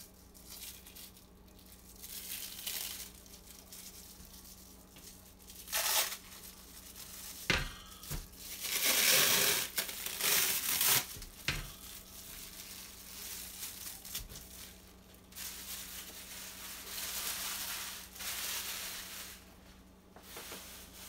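Plastic cling wrap crinkling and tearing as it is peeled off a raw pork roast, in irregular rustles that are loudest in a run of bursts from about seven to eleven seconds in.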